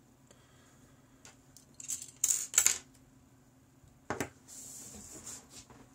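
Lockpicking tools and a brass lock cylinder being handled: a quick cluster of sharp metallic clicks and clinks about two seconds in, then another click about four seconds in followed by a brief scraping hiss.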